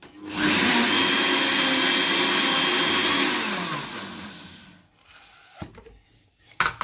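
Countertop stand blender mixing liquid pancake batter: the motor starts, runs steadily for about three seconds, then winds down with falling pitch over a second or so. Two short knocks follow near the end.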